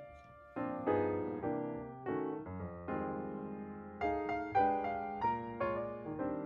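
Background piano music: soft chords and notes struck one after another, each ringing and fading.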